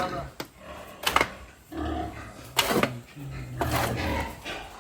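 Pigs grunting, with three short, loud squeals about a second in, midway and near the end.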